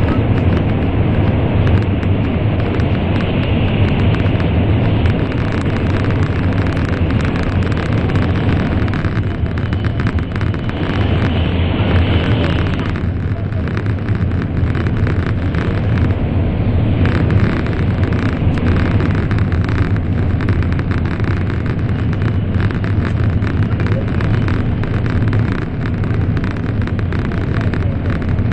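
Cabin noise of an N700 series Shinkansen running at speed: a steady loud low rumble with rushing noise. In the tunnel it carries an added hiss, which drops away about halfway through as the train comes out into the open.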